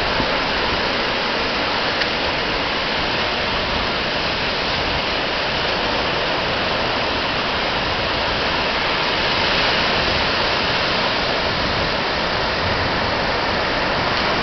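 Ocean surf breaking on a beach, a steady rushing noise that swells slightly about two-thirds of the way through.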